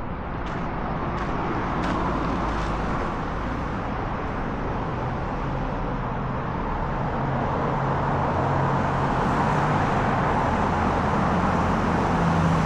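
Road traffic with a motor vehicle's engine hum that grows steadily louder, as if a vehicle is approaching or idling close by. Walking footsteps tick about every 0.7 seconds during the first few seconds.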